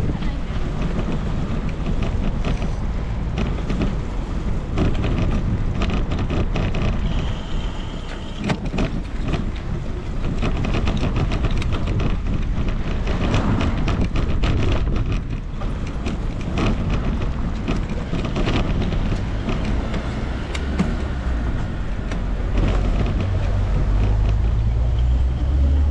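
Riding noise of a bicycle on the move: wind buffeting the microphone in a steady low rumble, with frequent small rattles and knocks from the bike. The rumble grows louder near the end.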